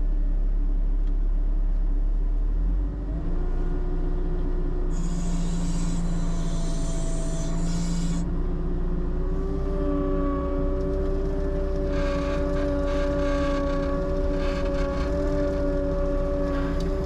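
Vehicle engine running steadily under load while hauling, its pitch stepping up twice, with stretches of hissing rush over the top.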